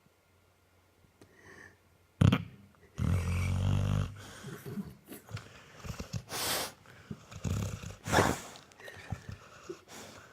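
Labrador dog snoring and snorting in its sleep: a sharp snort about two seconds in, a long low snore a second later, then several shorter snorts.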